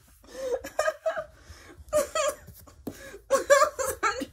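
A woman laughing and chuckling in several short bursts.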